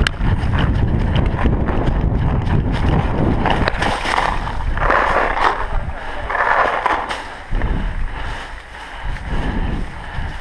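Running footsteps crunching through dry leaf litter, with wind and movement rumble on a head-mounted camera's microphone; the noise comes in uneven surges as the runner moves.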